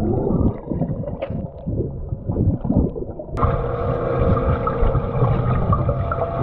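Muffled underwater noise picked up by a GoPro in its waterproof housing, submerged in a swimming pool: low rumbling water movement. A sharp click comes about three and a half seconds in, after which a steadier hum is heard.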